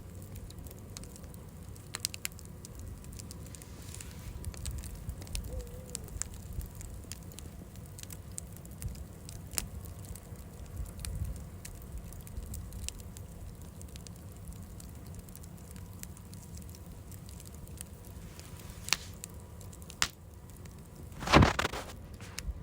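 A fire in a brazier or fireplace crackling steadily, with scattered sharp pops and a louder burst of crackles near the end.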